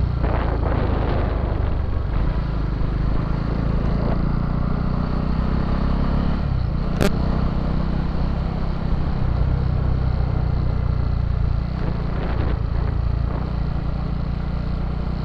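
Motorcycle engine running steadily under way, with road and wind noise; a single sharp click about seven seconds in.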